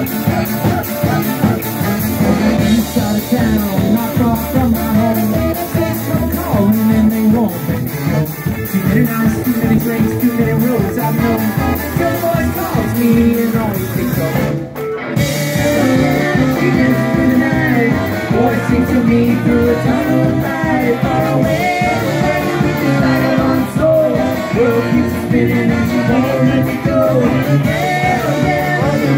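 A brass-funk band playing live, loud and continuous: a sousaphone bass line, a drum kit, electric guitar and saxophone, with a woman singing. There is a brief dropout in the sound about halfway through.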